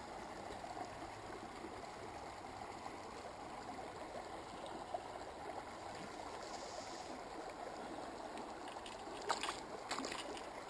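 Steady rush of flowing stream water, with a few sharp clicks near the end.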